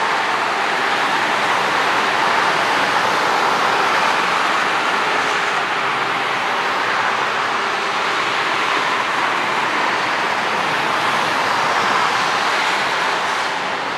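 Airbus A320's twin jet engines running at taxi power while the airliner taxis, heard as a steady rushing whine.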